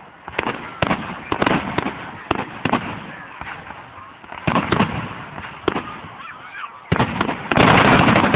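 Fireworks shells bursting overhead as a string of sharp bangs at uneven intervals, then a dense, rapid volley of bursts near the end, which is the loudest part.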